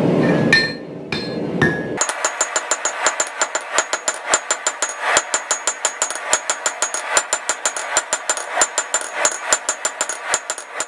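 A hand hammer strikes hot steel on an anvil in rapid blows, several a second, each with a light metallic ring. A low rushing noise fills the first two seconds before the hammering starts.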